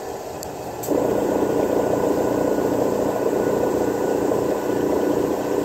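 A steady mechanical drone that switches on abruptly about a second in and keeps running, like a motor starting up. Two faint light clicks come just before it.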